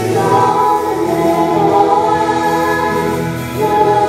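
Girls' vocal group singing a hymn in harmony, in long held notes, with a brief lull between phrases about three and a half seconds in.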